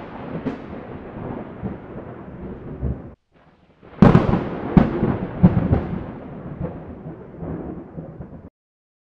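Sound-effect booms of an animated outro: a heavy hit fading in a long low rumble, a short break, then a second loud hit about four seconds in followed by a few more thuds as the rumble dies away, cutting off shortly before the end.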